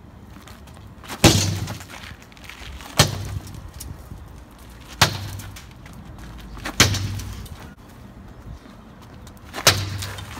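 Large chunks of ice thrown hard against a solar panel's glass face, five strikes about two seconds apart. Each is a sharp smack with a brief low ring after it. The panel holds up without breaking.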